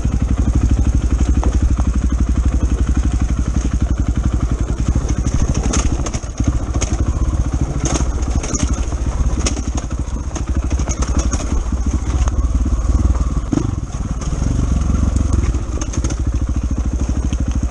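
Enduro dirt bike engine running under throttle while riding a rough dirt trail, with knocks and rattles from the bike over rocks and ruts. The engine eases off briefly about six seconds in, then picks back up.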